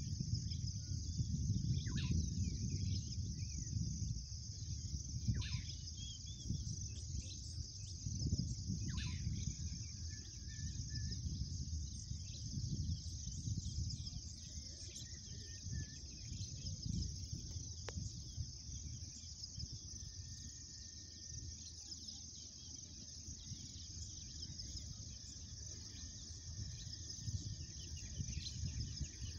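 Insects trilling steadily in a high chorus, with a bird's short descending whistle three times in the first ten seconds. Underneath runs a low, uneven rumble that is the loudest part and fades somewhat after the first half.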